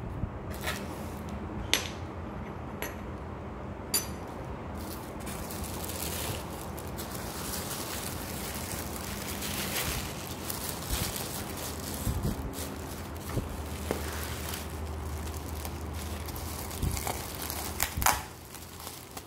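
Crumpled tissue paper rustling and bubble wrap crinkling as hands dig through a box and unwrap a glass item. There are a few sharp clicks in the first seconds and a louder click near the end.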